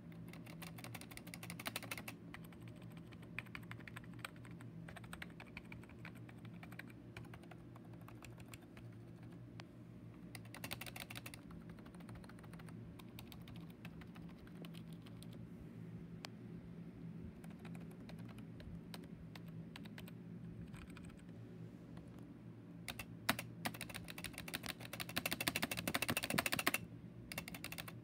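Keys of an old Apple keyboard, among them the space bar and the return key, clacked very rapidly in bursts of fast clicks. The longest and loudest burst comes near the end.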